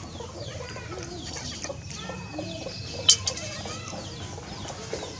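Chickens clucking in short, scattered calls, with one sharp click about three seconds in.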